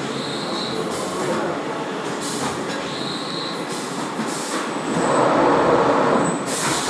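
Automatic textile printing machine running, its fabric pallets travelling around the track with a steady mechanical rumble. Short hisses come every couple of seconds, with faint high squeals now and then. The noise swells for about a second and a half near the end.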